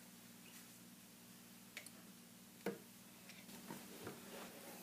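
Near silence with a few faint clicks and taps, the clearest about two and a half seconds in, as a stainless steel Smith & Wesson Model 500 revolver frame is picked up and turned over on a padded bench mat. A faint steady hum lies underneath.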